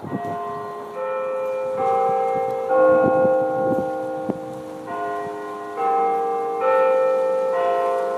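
Tower bells sounding a clock chime tune: four bell notes about a second apart, a pause of about two seconds, then four more notes, each ringing on under the next.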